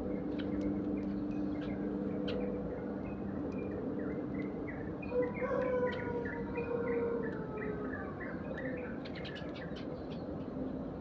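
Sparrows chirping over and over in quick short notes while they feed, busiest through the middle. Under them runs a steady low hum, and a lower droning tone slides down in pitch around the middle.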